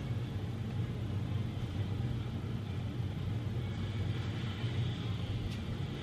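Steady low hum and rumble of background noise, with a faint hiss above it, heard through an Instagram live stream's audio.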